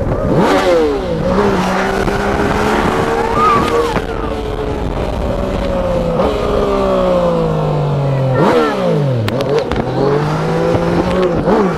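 Yamaha MT-09's three-cylinder engine under way. Its pitch holds steady for a few seconds, then falls away slowly, drops sharply about nine seconds in, and climbs again near the end as the bike pulls.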